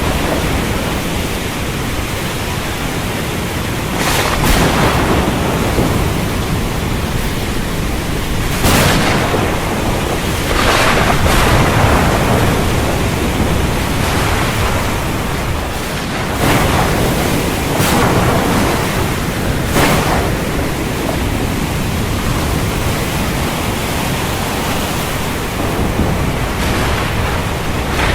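Windstorm at sea: a steady rushing of wind and surf that surges louder every few seconds.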